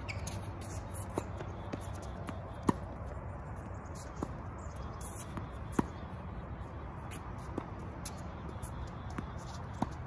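Tennis rally on a hard court: sharp racket-on-ball hits about every three seconds, with fainter clicks of the ball bouncing and the far player's strokes between.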